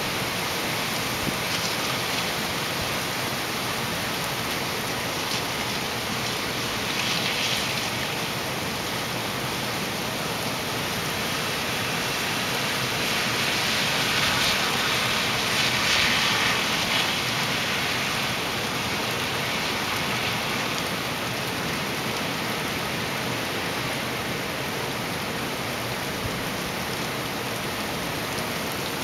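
Heavy hurricane rain pouring down steadily, swelling louder a few times, most strongly around the middle.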